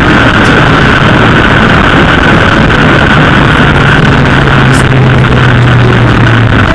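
Honda CB750 Seven Fifty air-cooled inline-four motorcycle riding at road speed: loud, steady wind rush on the microphone over a steady engine note, which drops out briefly near the end.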